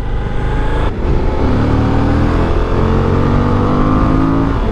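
Suzuki V-Strom 1050DE's 1037 cc V-twin under hard acceleration. The engine note climbs in pitch and drops back at each upshift, twice, as the bike gathers speed.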